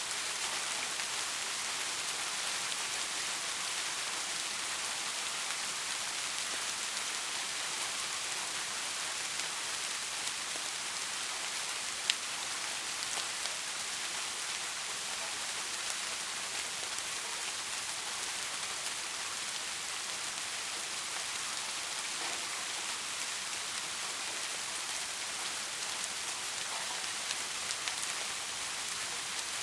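Steady rain falling, an even hiss with scattered drop ticks, and one sharper click near the middle.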